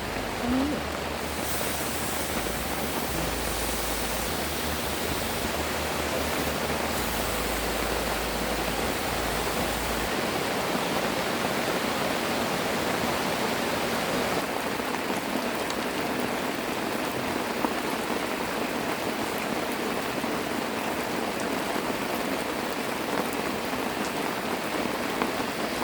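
Steady, even rush of water with no breaks, with a deep rumble on and off during the first ten seconds or so.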